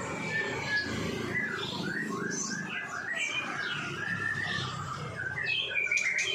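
White-rumped shama (murai batu) singing: a fast run of short chirping and whistled notes, with a cluster of sharper high notes near the end.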